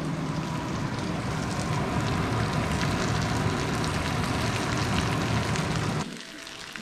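Beef and scallions frying in a small skillet over a gas burner, a steady sizzle with small crackles, while a flour tortilla is pressed down on top. The sizzle drops off sharply near the end as the pan leaves the heat.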